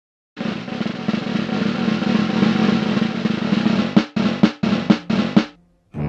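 Snare drum roll lasting about three and a half seconds, then four single drum hits about half a second apart, as a drum intro to music.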